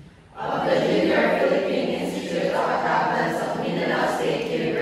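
A group of about twenty people speaking an oath together in unison, repeating a line after the leader, their many voices blurring into one. It starts just after a brief pause.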